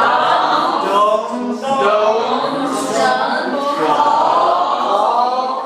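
Several people's voices at once, going on without a pause, with no single clear speaker.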